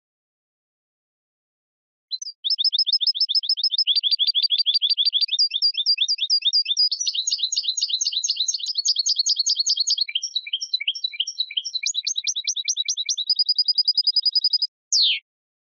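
European goldfinch singing: quick runs of fast, repeated twittering notes that change pattern every second or two. The song starts about two seconds in and ends with a single falling note.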